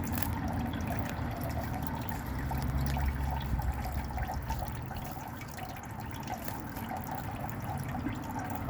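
Water trickling and splashing steadily in a garden fountain, with many small drips.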